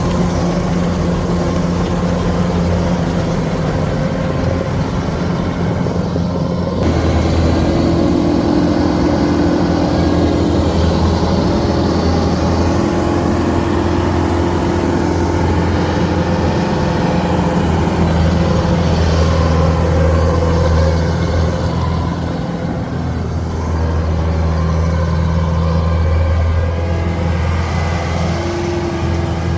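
Kubota rice combine harvester's engine running under load, a steady heavy machine drone with a strong low hum. About seven seconds in it suddenly gets louder and heavier.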